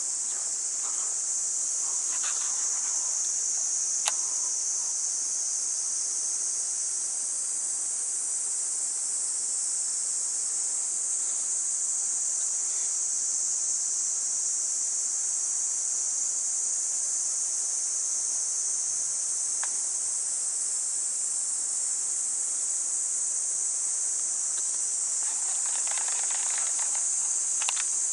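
Steady, high-pitched chorus of summer insects shrilling without a break, with a couple of faint clicks.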